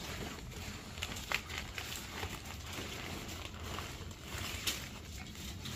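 Low, steady outdoor rumble with scattered sharp clicks and light crackles, two of them a little louder, about a second in and near the end.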